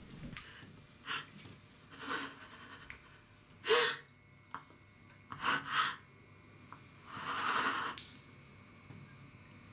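Heavy breathing and gasps, a separate breath every second or so; the loudest is a sharp gasp about four seconds in, and a longer breath out comes near the end.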